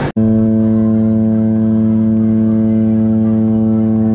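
Costa neoRomantica cruise ship's horn sounding one long, steady, deep blast as the ship leaves port.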